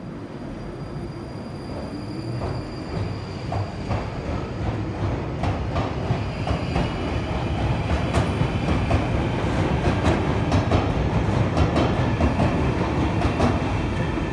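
London Underground 1995 Stock tube train pulling out of the platform and gathering speed past the listener. It runs with a low rumble and a thin whine, and from about a third of the way in many sharp wheel clicks come over the rail joints. It grows steadily louder throughout.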